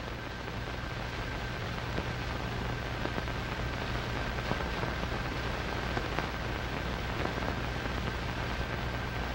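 Hiss and faint crackle of an old 1940s film soundtrack, with a steady low hum underneath.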